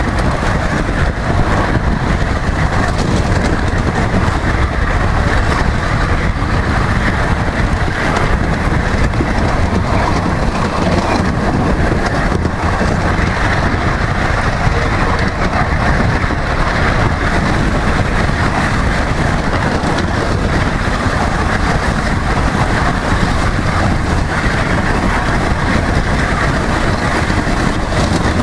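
Ride-on miniature railway train running along the track, heard from a passenger car: a steady, loud rumble of the train in motion.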